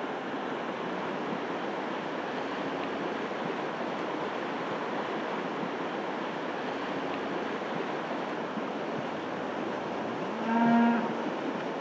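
Steady rush of a high, fast river. Near the end a single cow moos once, a short call rising in pitch and louder than the water.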